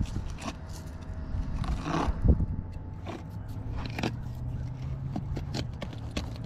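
Fillet knife working along a striped bass on a plastic cutting board: scattered scrapes, clicks and knocks of the blade and fish against the board, with a heavier thump about two seconds in. A faint low hum runs underneath from about halfway.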